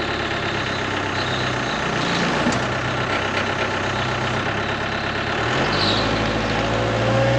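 Tractor engine running steadily; about five and a half seconds in its note shifts lower and strengthens.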